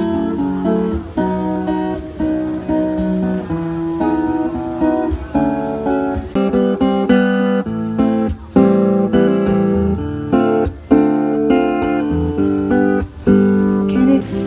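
Acoustic guitar music: a melody of picked notes, with strummed chords coming in about halfway through.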